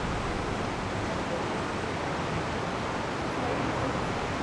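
Steady rushing background noise, even in level, with no distinct events.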